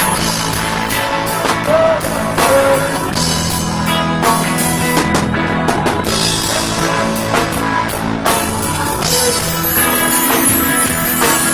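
Loud live dancehall music played through a stage sound system, with a drum kit and guitar keeping a steady beat.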